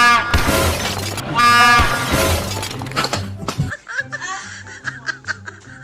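Two loud train-horn blasts, the first at the start and the second about a second and a half later, each under a second long. From about four seconds in, edited-in music with a stepped bass line takes over.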